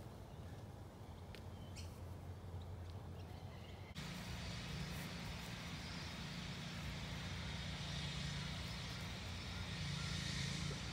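A steady low engine drone with a hiss over it, starting abruptly about four seconds in and swelling a little near the end; before it only a faint low hum with a few light clicks.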